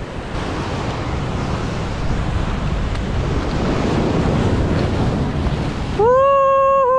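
Ocean surf breaking and washing over a rocky shore, with wind buffeting the microphone, swelling louder over the first few seconds. About a second before the end, a loud, long, high-pitched call cuts in, held level, then falls away.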